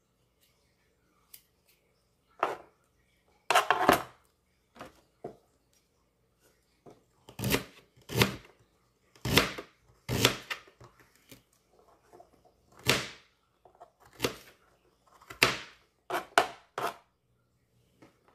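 Chef's knife chopping fresh ginger on a plastic cutting board: a dozen or so sharp, single knocks of the blade on the board, unevenly spaced about a second apart, with only faint sounds in the first few seconds.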